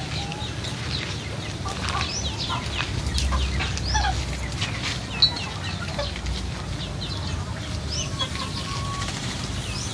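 Chickens clucking and calling, with many short, high chirps throughout and a sharp click about halfway through.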